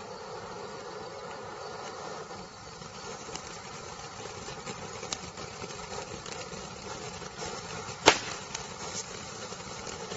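Red Devil ground fountain firework burning with a steady rushing noise and scattered crackles, and one loud sharp crack about eight seconds in.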